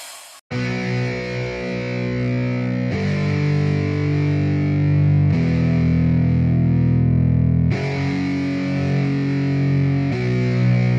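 Background music: a distorted electric guitar playing held chords that change about every two and a half seconds, starting after a brief gap about half a second in.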